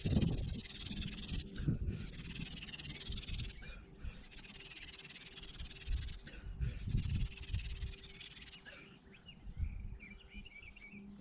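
Hand-drill fire-making: a wooden spindle spun between the palms grinds into the hearth board in repeated passes, its rasping hiss stopping briefly every couple of seconds as the hands reset. Wind buffets the microphone in low gusts, and birds chirp near the end.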